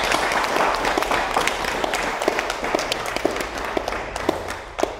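A small audience applauding, with single hand claps standing out, fading toward the end.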